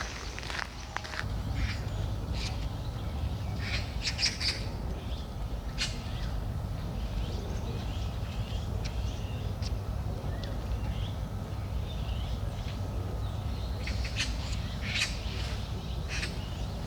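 Park birds calling: short, harsh squawking calls in scattered bursts, clustered about two, four and six seconds in and again near the end, over a steady low rumble.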